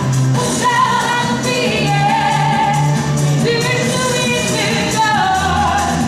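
A woman singing live into a handheld microphone over musical accompaniment, holding long notes with slight pitch wavers.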